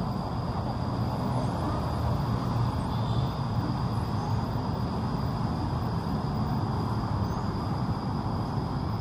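Steady low rumble of outdoor background noise, even throughout, with a faint steady high-pitched tone above it.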